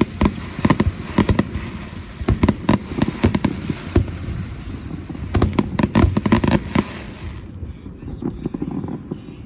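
Fireworks display: a rapid barrage of sharp bangs and crackling bursts, many in quick succession, that thins out and stops about seven seconds in.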